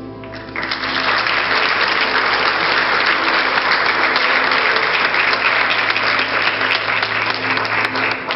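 Audience applauding, beginning abruptly about half a second in as the last sustained notes of the song die away, and breaking off sharply just before the end.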